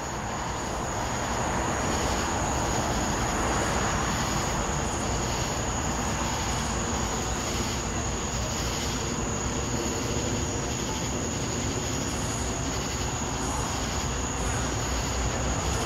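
Diesel locomotive engines running in a steady low drone as the train approaches slowly head-on, with a steady high thin tone on top.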